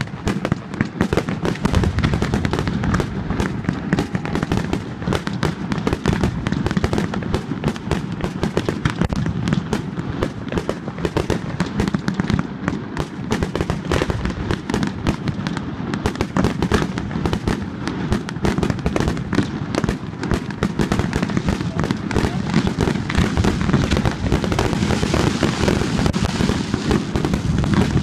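Aerial fireworks display: a continuous, rapid barrage of shell bursts and crackling, with the bangs overlapping without pause. The crackle grows brighter and hissier near the end.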